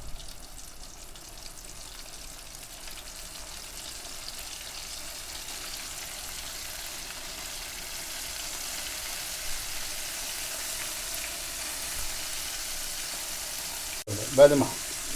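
Pieces of fish fillet coated in flour and starch, deep-frying in hot oil: a steady sizzle that grows slowly louder.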